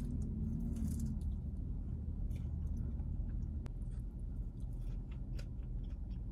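A person chewing waffle fries with the mouth closed: soft, irregular small clicks and crunches over a steady low rumble.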